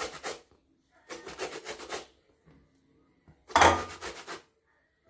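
Citrus peel being rubbed over a fine hand grater to zest it, in three short bouts of quick rasping strokes; the loudest bout, about three and a half seconds in, starts with a knock.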